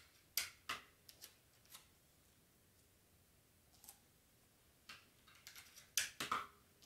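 Clear tape being torn off and pressed onto black cardstock seams: a series of short, sharp crackling snaps and rustles. The loudest pair comes about six seconds in.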